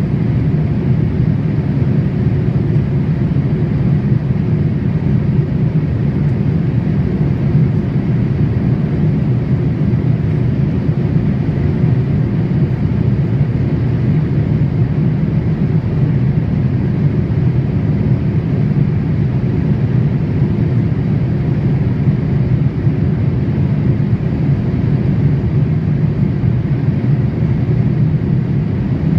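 Steady cabin noise inside a Boeing 787 airliner in flight: an even, low rumble of airflow and engines.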